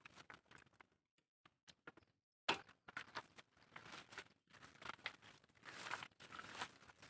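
Faint rustling and crackling made of many small sharp clicks. It drops to near silence for about a second and a half, starting about a second in, then comes back denser.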